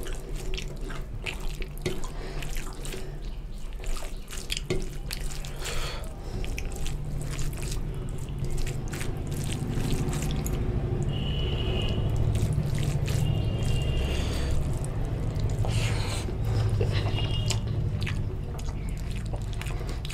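Fingers squeezing and mixing rice into chicken curry gravy on a steel plate: wet squelching with many small clicks, over a low steady hum.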